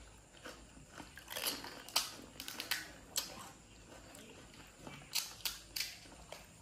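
Crisp panipuri shells crackling and crunching as they are broken open and eaten, with chewing. The sound is a scatter of short, sharp cracks: several in the first half and a quick cluster of three about five seconds in.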